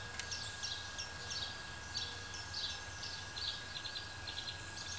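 Small songbirds chirping: a steady run of short, repeated high notes, with a faint steady high tone underneath.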